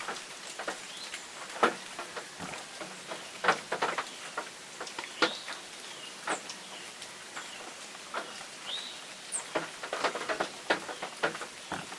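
Woodland ambience in the rain: irregular patter of raindrops over a steady hiss, with a few brief, high bird chirps.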